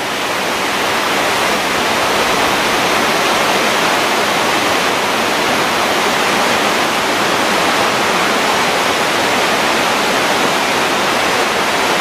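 Waterfall: water falling down a steep rock face onto the rocks below, a loud, steady rush with no breaks.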